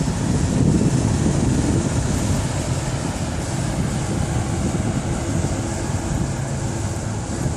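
Steady low engine rumble, unbroken, with a faint high whine above it.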